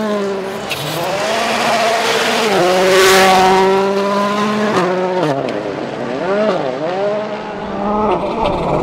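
A World Rally Car's 1.6-litre turbocharged engine at full stage pace, its note climbing under acceleration and dropping sharply at each gear change. In the second half the pitch dips and climbs several times in quick succession, as the car slows and picks up again through corners.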